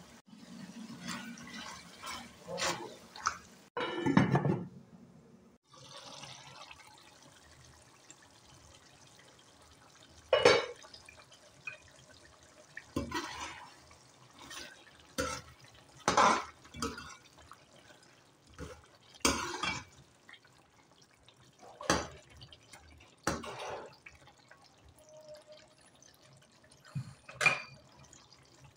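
Thick chicken and okra curry gravy simmering, big bubbles rising and bursting in separate wet plops every second or two, with a louder, deeper one about four seconds in.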